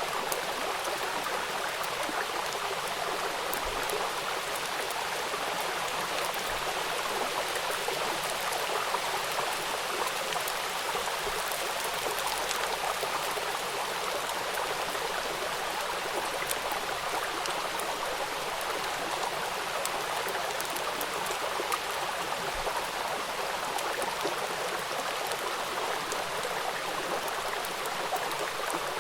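Rain falling on a river: a steady rush of water, dotted with many fine drop ticks.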